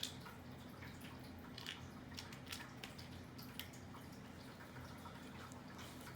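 Faint, scattered small clicks and ticks of an 8-32 screw, nut and plastic lid parts being handled, over a steady low hum.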